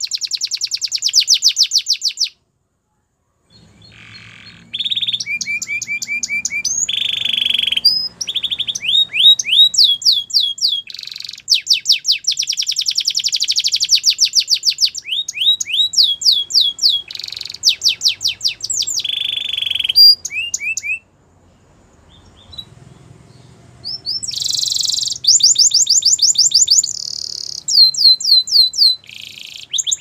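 Russian singer canary singing: runs of rapid repeated high notes, each run at its own speed and pitch, broken by a brief silence near the start and a quieter pause about two-thirds of the way through.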